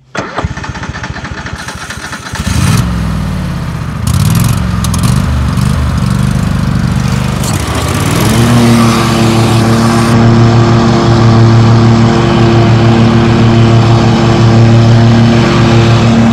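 A riding lawn mower's engine is cranked on its electric starter for about two seconds, with the choke on. It catches and runs unevenly, its pitch surging up and down, then about eight seconds in it settles into a steady fast run.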